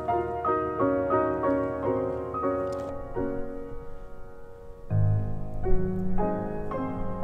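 Background piano music: a slow run of single notes, with deeper bass notes coming in louder about five seconds in.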